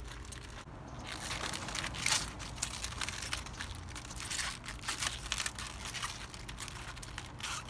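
Crisp kale leaves rustling and crinkling as they are handled and gathered into a bunch, an irregular run of small crackles.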